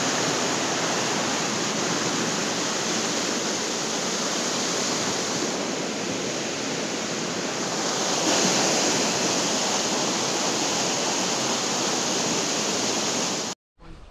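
Loud, steady rush of fast-flowing mountain river water. It cuts off suddenly near the end.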